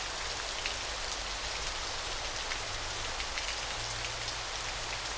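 A small stream babbling over a little waterfall: a steady rush of water full of fine splashes and drips.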